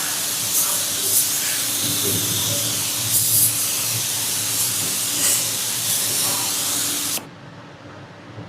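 Steady, high-pitched spraying hiss with a few brief louder spurts, cutting off abruptly about seven seconds in.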